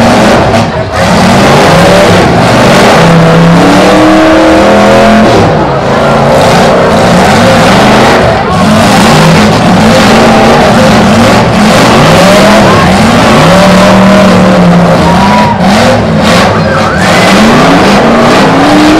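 Several demolition derby cars with their engines revving hard, the pitch rising and falling over and over in a loud, continuous din.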